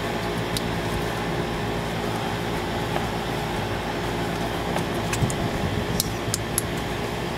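Steady hum of a running fan or blower, with a few light clicks, several close together about five to six and a half seconds in.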